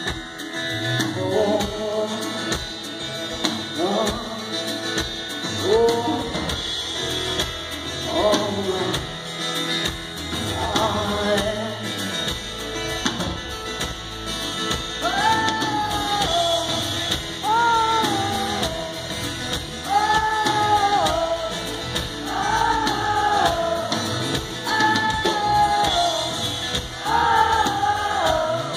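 A woman singing a slow song live over her own twelve-string acoustic guitar. From about halfway on she holds a series of long high notes, each falling slightly at its end.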